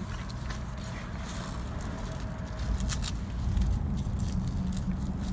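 Steady low rumble of street traffic, with a few sharp clicks and rattles, about three seconds in, from the tent's metal frame and sidewall strap being handled.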